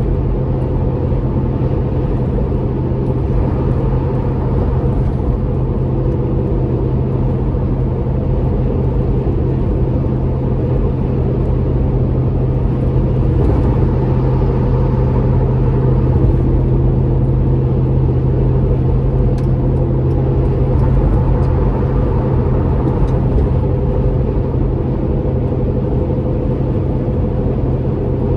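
Inside the cabin of a Toyota 4.7L V8 SUV fitted with a Magnaflow Overland stainless cat-back exhaust, cruising at 65 mph just under 2,000 rpm: a steady low exhaust drone with road noise, holding level throughout.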